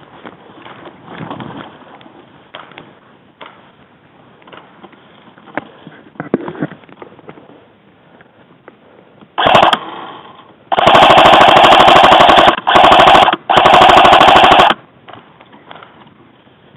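Airsoft gun firing on full auto close to the microphone: one short burst about nine seconds in, then three long bursts of rapid fire in quick succession. Before the shooting there is only faint rustling and scattered light clicks.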